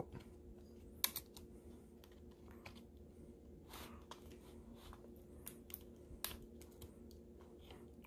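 Scattered faint clicks and taps of a laptop RAM module and fingertips against the memory slot and chassis as the module is slid into its slot, over a low steady hum.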